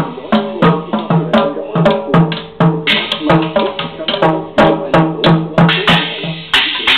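Small child beating a toy drum kit with sticks: quick strokes on the drum and the cymbal, about three a second.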